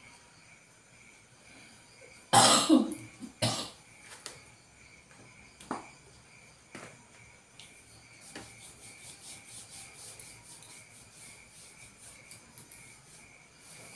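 A person coughs, a loud cough about two seconds in with a shorter one a second later; from about eight seconds in, faint quick rubbing of hands sliding over cream-coated skin during a leg massage.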